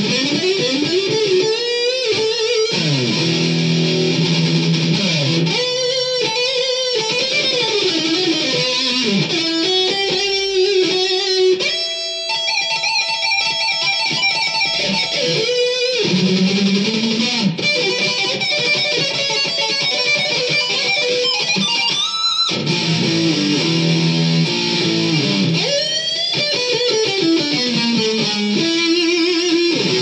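Electric guitar played through a Marshall amplifier: fast lead runs of many quick notes, with several sweeping climbs and falls in pitch.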